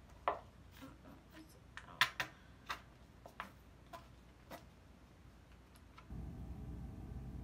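Scattered small plastic clicks and taps as a tube of hair gel is handled and squeezed onto a hand. A low rumble comes in about six seconds in.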